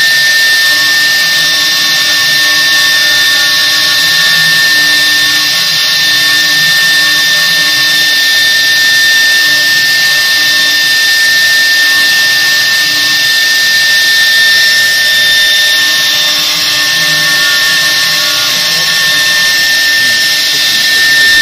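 Spindles of a two-head CNC router running with a steady high-pitched whine while the bits engrave a pattern into a board. Fainter lower tones come and go over the top.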